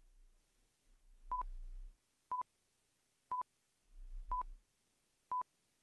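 Quiz countdown timer beeping: five short, identical high beeps about one second apart.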